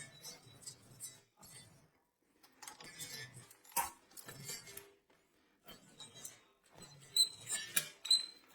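Irregular clicks, clinks and light knocks of metal parts being handled as a saw attachment is clipped onto an angle grinder and secured; the grinder is not running.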